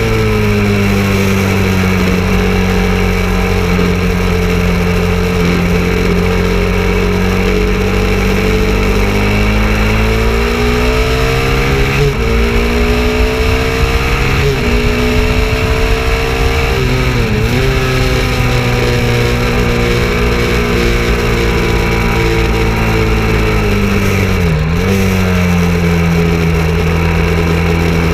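Single-cylinder engine of a KTM 690 Duke motorcycle running hard at speed, heard from on board over a steady rush of wind. Its pitch sinks and holds, then climbs under acceleration, with several brief dips and one sharp drop near the end.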